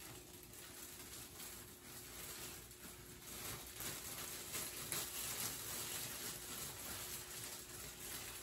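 Thin clear plastic cap crinkling and rustling as hands pull and stretch it over a dye-covered head, an irregular run of small crackles.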